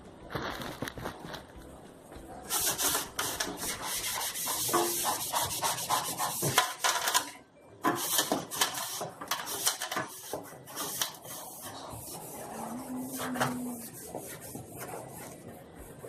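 Hand scrubbing during a refrigerator cleaning: quick repeated rubbing strokes against a hard surface, a few a second, with a short break about halfway through.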